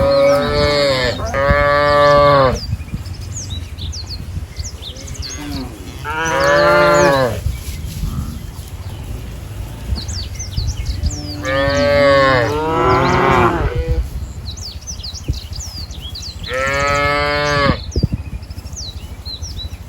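Cattle mooing: about six drawn-out calls of a second or so each, some coming in quick pairs, with small birds chirping faintly between them.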